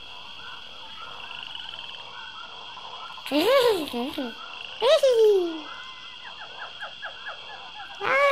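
Frogs croaking in a chorus over a steady high hum, with a quick run of even croaks after about six seconds. Two short whining cries break in around the middle, and a longer falling cry starts near the end.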